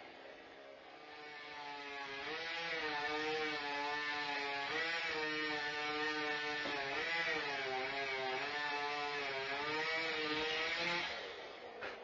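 Chainsaw running at high revs and cutting, its pitch wavering up and down as the chain bites into the wood. It builds up over the first two seconds and stops about eleven seconds in, with a short click just after.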